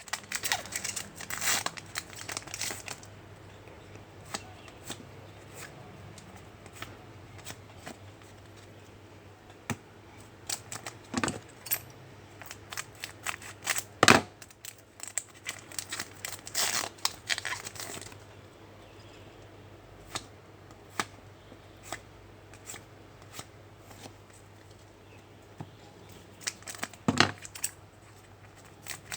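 Trading-card pack wrappers being torn open and crinkled, in two bursts about a second in and again around two-thirds of the way through, with scattered light clicks of cards being handled in between.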